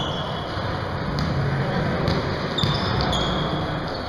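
Basketball game sounds in a gym: a ball dribbled on the court and sneakers squeaking several times against the floor, over a steady murmur of players and spectators echoing in the hall.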